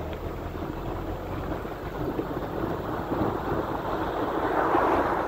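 Steady road and wind noise from a car driving along a paved road. It swells near the end as an oncoming SUV draws close.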